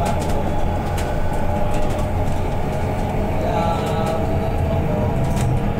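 Cabin ride noise of a BYD K9UB battery-electric bus on the move: a steady rumble of tyres and road, with scattered clicks and rattles from the body and fittings. No engine note is heard.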